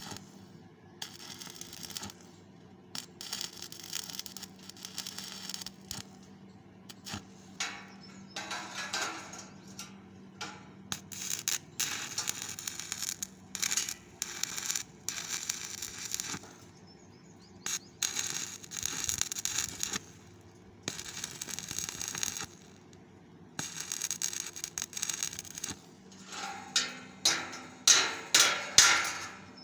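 Electric arc welding crackling and sizzling in bursts of a few seconds with short breaks between them. Near the end come a run of sharp hammer strikes on metal.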